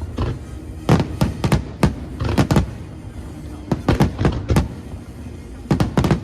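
Aerial fireworks shells bursting, sharp bangs coming in quick clusters of three or four several times over a few seconds, over a low background rumble.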